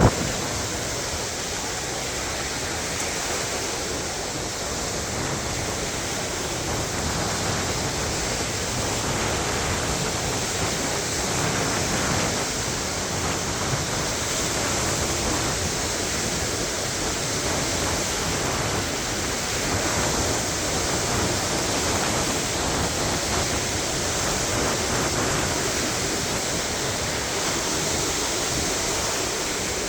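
Waves on Lake Michigan washing onto the shore: a steady wash of surf that swells and eases slightly in level.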